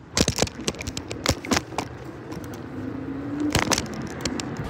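Handling noise on a phone's microphone as the phone is swung around and put away: a quick run of clicks, knocks and bumps, over a low traffic hum. A faint rising whine comes in about halfway through.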